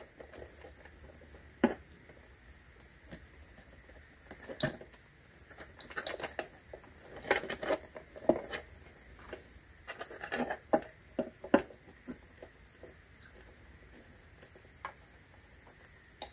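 Wiring plugs and cables at an eBike's motor controller being handled by hand: scattered small plastic clicks, taps and rustles of wire, coming in short irregular clusters.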